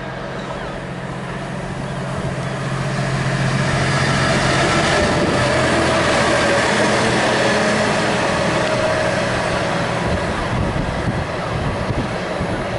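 Diesel engine of a Plasser & Theurer track tamper running with a steady hum as the machine passes along the track. The sound grows to its loudest about midway and then eases off.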